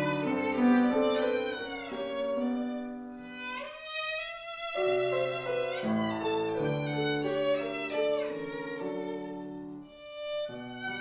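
A violin playing a slow, singing melody with slides between notes over a sustained lower accompaniment. The lower part drops out briefly about four seconds in, and the music thins near the end.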